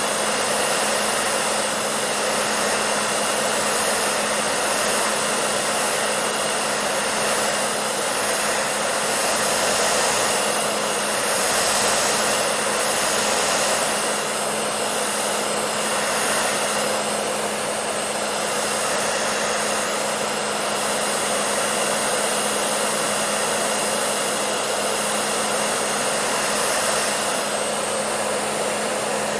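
Electric hair dryer running steadily: a dense rushing blow of air over a constant motor hum, swelling slightly in the middle.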